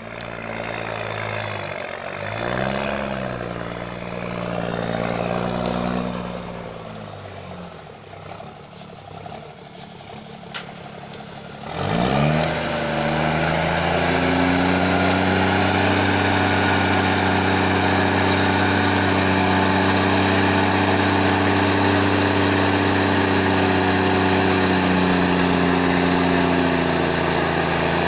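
Vehicle engine running and revved twice, then dying down about eight seconds in. After a few sharp clicks it starts again about twelve seconds in, its pitch sweeping up as it catches, and then runs steadily and louder.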